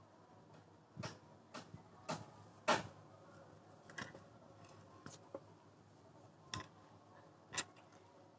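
Embroidery needle and thread being worked through fabric stretched taut in an embroidery hoop: about eight sharp taps and short pulls at irregular intervals, the loudest a little under three seconds in.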